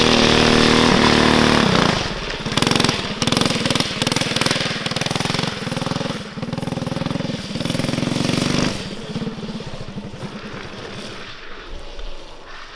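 Small single-cylinder drift-trike engine running loud and steady close by for about two seconds. It then drops off and surges up and down in repeated bursts of throttle, and fades away over the last few seconds.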